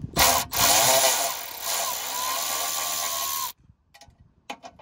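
Milwaukee Fuel cordless electric ratchet spinning out a 7 mm bolt from the splash guard. A brief burst is followed by a run of about three seconds with a steady motor whine, which cuts off suddenly. A few faint clicks follow.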